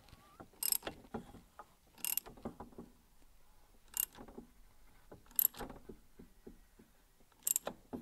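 Ratchet wrench turning a Saab 96 two-stroke engine over by hand with its cylinder head off: a sharp click about every one and a half to two seconds, with lighter ticks between.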